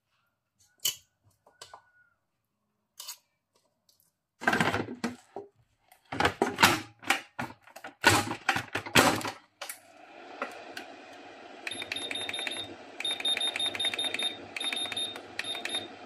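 Chicken pieces and the lid being set on a Breville air fryer, with loud irregular clatter, then the fryer's fan starts with a steady whir and hum. Its control panel then beeps in quick runs of short high beeps as the cooking time or temperature is set.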